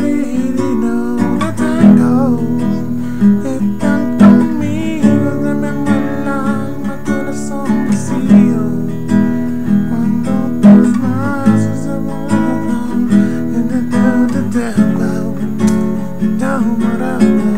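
Classical guitar strummed in a steady rhythm while a man hums the melody along with it, without words.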